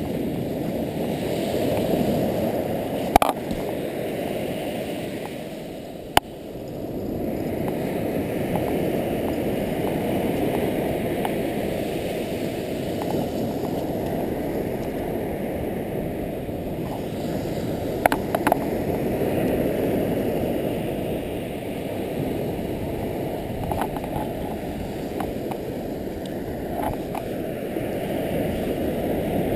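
Steady low rush of surf breaking on a sandy beach, swelling and easing, with a few short sharp clicks from handling.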